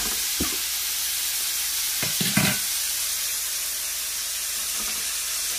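Minced-lamb keema patties sizzling in oil in a frying pan, with a few short knocks and scrapes of a metal spatula on the pan, the loudest about two and a half seconds in.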